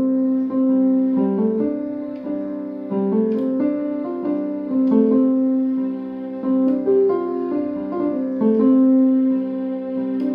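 Background piano music with slow, held notes changing about once a second.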